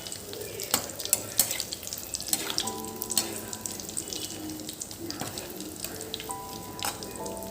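Kitchen work: a steady hiss with many sharp clinks and knocks of utensils.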